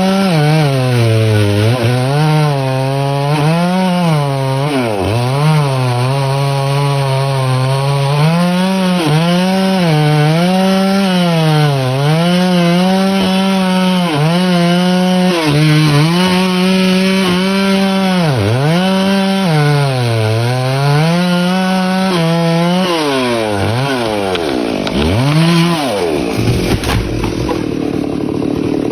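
Chainsaw engine running at high speed while cutting wood, its pitch sagging every second or two as the chain bogs under load, then climbing back. Near the end the engine pitch falls away and a lower, rougher noise takes over.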